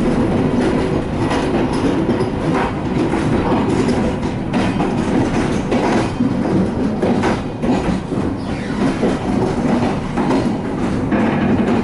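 Passenger train running along the track: a steady rumble of wheels on rails with repeated clacks as the wheels pass over rail joints.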